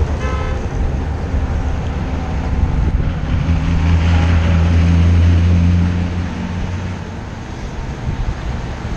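Road traffic rumble heard from a moving vehicle in city traffic, with a deep engine drone that swells loud for about three seconds in the middle and then fades. A short high tone sounds just after the start.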